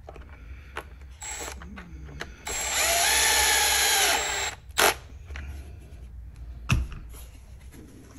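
Handheld electric drill/driver motor spinning up, running for about two seconds and winding down. A few small clicks and a sharp knock come near the end.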